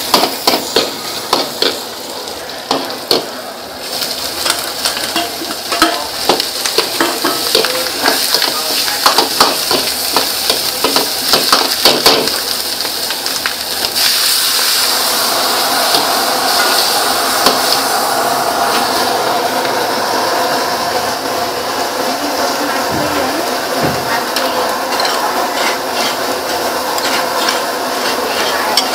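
Chopped garlic frying in oil in a steel wok, with a metal ladle scraping and clinking against the pan throughout. About halfway through, as more ingredients go into the wok, the sizzle becomes louder and steadier.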